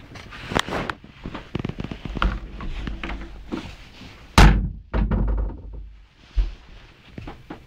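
A caravan's light wooden washroom door being opened by its lever handle: a run of clicks and knocks, the loudest a heavy thunk a little past halfway, followed by two smaller thuds.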